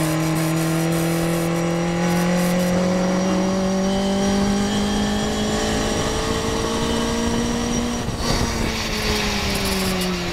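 Morgan race car engine heard from on board, pulling hard in one gear with its pitch climbing slowly for about eight seconds. Near the end the driver lifts off and the revs fall as the car slows for a corner. A steady rush of air runs underneath.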